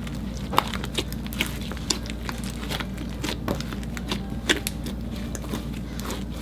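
Slime being mixed by hand: jiggly slime, fluffy butter slime and foam-bead floam kneaded together, giving irregular sticky squelches and small crackling clicks, a few a second.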